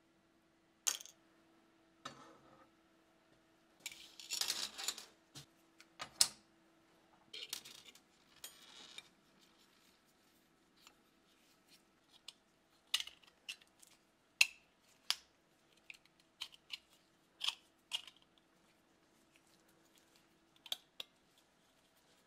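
Steel bayonet parts being handled: scattered sharp metallic clicks and clinks, with a couple of longer scraping rustles in the first half. A faint steady hum runs underneath.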